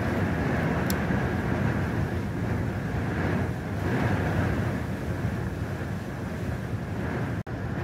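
Strong gusting wind buffeting the microphone as a steady low rumble, over choppy, whitecapped harbour water. The sound cuts out for an instant near the end.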